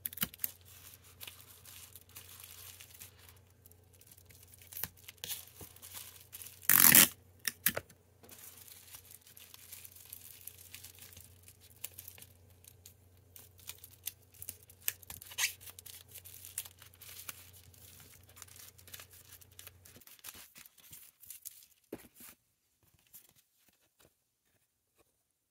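Hands handling a bubble-wrapped parcel: plastic crinkling and rustling, with packing tape being pulled and torn, the loudest a sharp tear about seven seconds in.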